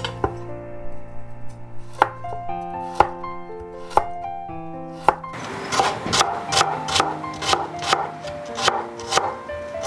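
Kitchen knife chopping a carrot on a wooden cutting board. A few single strokes about a second apart come first, then from about halfway a faster steady run of chops, two to three a second, over background music.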